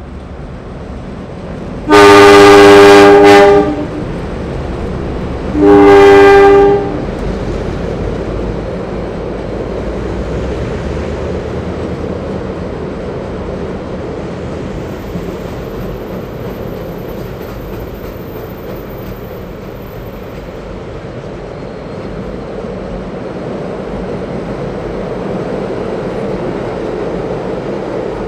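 A DA class diesel-electric locomotive sounds two horn blasts, the first about a second and a half long and the second about a second. The train then rumbles steadily across a steel girder bridge, growing slightly louder near the end.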